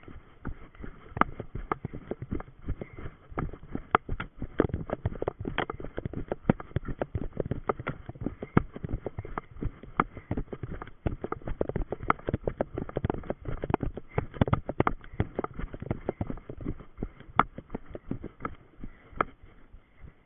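Running footsteps on a forest path and through grass, a fast, uneven stream of thuds and knocks picked up close by a body-worn camera.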